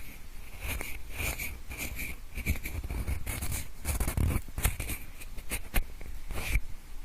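Pencil scratching and rubbing close to the microphone in an irregular run of short strokes, mimicking the sound of ear cleaning, with a sharper tap near the end.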